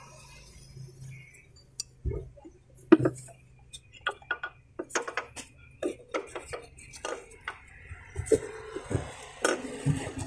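Scattered light clicks, taps and metallic clinks from hands working loosened drive belts off the crankshaft pulley of a Mitsubishi 4D56 engine. The clicks come irregularly, a little more often in the second half.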